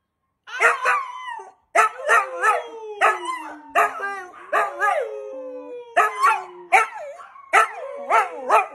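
A dog howling and yipping: a run of short sharp yelps, about two a second, over long howls that slide slowly down in pitch.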